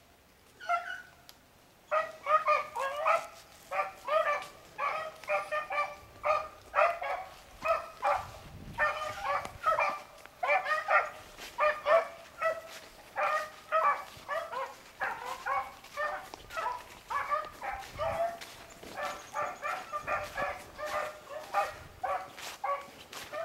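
Beagles baying as they run a rabbit's track. A single bay comes about a second in, then from about two seconds on a steady run of quick, overlapping barks and bays, several a second.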